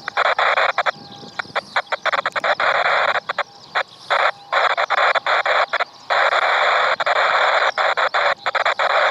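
Air-band radio receiver putting out a loud, band-limited static hiss that cuts in and out abruptly many times: the squelch opening on an unmodulated or noisy transmission, with no voice.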